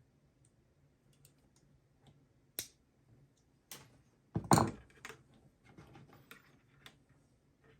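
Scattered small clicks and taps of hand tools and small parts being handled, with a louder cluster of knocks about four and a half seconds in.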